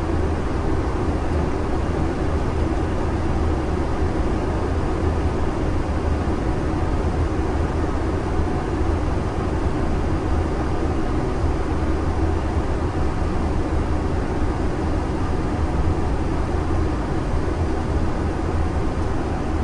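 Steady cockpit noise of an Airbus A330: an even air rush with a strong low rumble and a faint steady hum, unchanging throughout.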